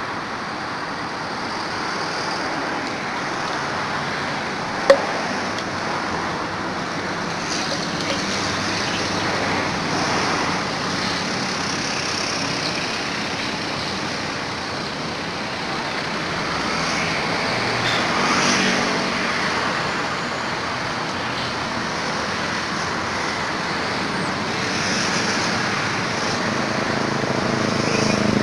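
Steady road traffic noise, swelling as vehicles pass about ten seconds in, again a little before the middle, and near the end. There is a single sharp click about five seconds in.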